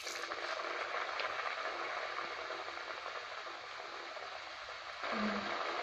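Unnakaya, plantain dumplings stuffed with scrambled egg, sizzling steadily as they deep-fry in hot oil in an iron kadai. The oil was heated first, so the food bubbles hard as soon as it goes in. The sizzle swells again about five seconds in.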